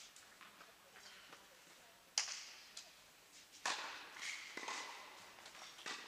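Tennis balls struck by racquets during a doubles rally: sharp pops about two seconds in, again a little after the middle, and near the end, with a fainter hit in between.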